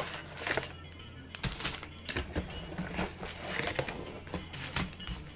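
Foil trading-card packs being handled and torn open: an irregular run of sharp crinkles and clicks.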